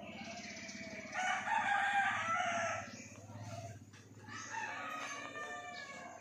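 A rooster crowing twice: a loud crow about a second in and a second, fainter crow ending in a falling note near the end, over a low steady hum.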